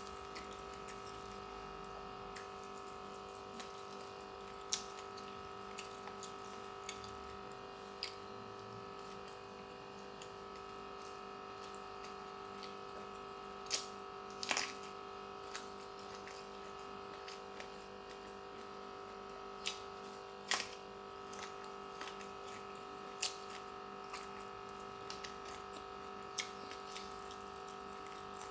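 Close-up eating sounds: scattered chewing and mouth clicks as fried fish and rice are eaten by hand, with the sharpest clicks about halfway through, when a raw round green eggplant is bitten. Under them runs a steady hum.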